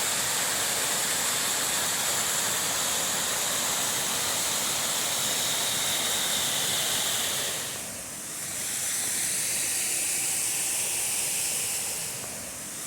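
Steady rush of a nearby waterfall or creek, dipping briefly about eight seconds in and again near the end.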